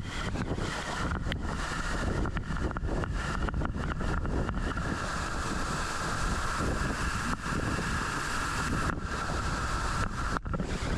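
Waterfall water rushing steadily, with wind buffeting the microphone.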